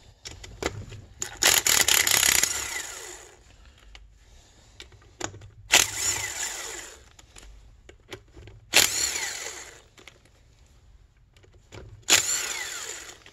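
Cordless power driver spinning out the stator plate bolts on a two-stroke snowmobile engine case, in four short bursts of about a second each, with pauses between them.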